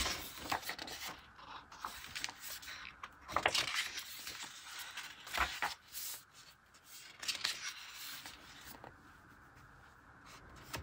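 Pages of an open-spine paper planner being turned and smoothed flat by hand: a few short paper rustles and scrapes with quiet gaps between.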